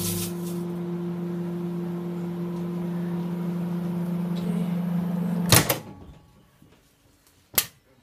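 Panasonic microwave oven running with a steady low hum while a crisp packet burns inside. About five and a half seconds in, a loud click as the door is opened cuts the hum off, and another sharp click follows two seconds later.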